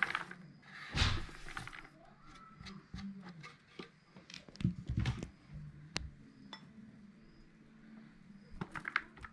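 Kitchen handling sounds while making manti: dishes and utensils clinking and knocking in a scatter of light taps, with two louder rustling bursts in the first two seconds and a quick run of clicks near the end.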